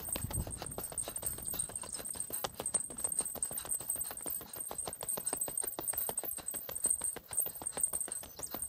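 A hiker's footsteps at a brisk, even pace on a mountain access road, with a steady high-pitched whine behind them.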